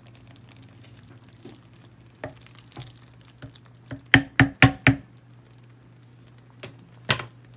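Wooden spoon stirring a thick chicken, broccoli and rice casserole in a ceramic slow-cooker crock, with soft scraping clicks, then four sharp knocks in quick succession about four seconds in as the spoon is tapped against the crock, and one more knock near the end.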